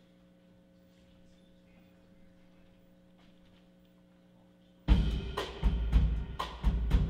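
A faint steady hum from the stage equipment. About five seconds in, a live band comes in loudly, drum kit and electric bass playing with sharp, frequent drum hits.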